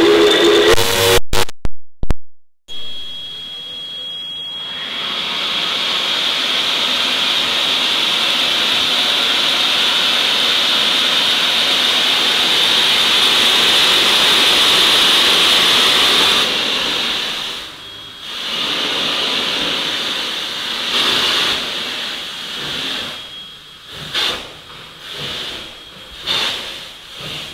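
Steam locomotive NSWGR 5917's whistle sounds close up, so loud it overloads the phone microphone, which cuts out several times in the first few seconds. A loud steady hiss of steam follows for about ten seconds, and then the engine starts away with slow, uneven exhaust chuffs.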